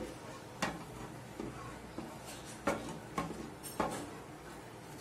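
Plastic ladle stirring milk into a ghee-and-flour roux in a pan, tapping and scraping against the pan's sides in several irregular clicks over a faint hiss.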